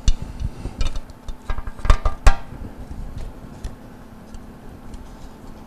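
Metal clinks and knocks of a steel bolt being worked into the cast-iron flange of a condensate pump: a run of sharp taps in the first couple of seconds, the loudest two close together about two seconds in with a brief ring.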